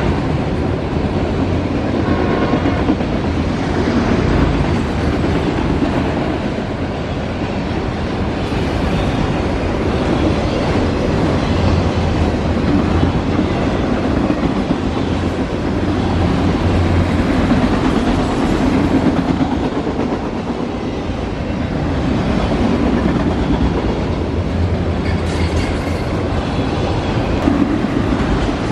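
Freight train of autorack cars rolling past close by, a steady rumble of steel wheels running on the rails.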